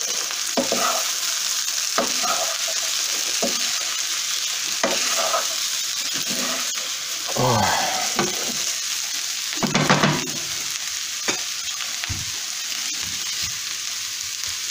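Diced potatoes frying in lard over high heat, sizzling steadily in a stone-coated frying pan, while a wooden spatula scrapes and turns them, with irregular scrapes and knocks against the pan, the loudest about ten seconds in.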